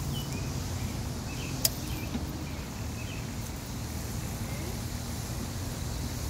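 Scissor jack being hand-cranked to lift a car, with one sharp metal clink about one and a half seconds in. A low steady rumble and small birds chirping sit underneath.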